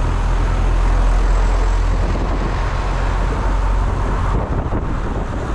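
Motorcycle engine running steadily while riding, with wind and road noise; the low engine hum eases a little about four seconds in.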